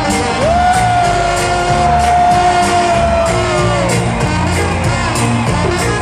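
Live band music in a large hall, recorded from among the crowd, with a bass pattern under it. One long high note slides up about half a second in, holds, and falls away about four seconds in.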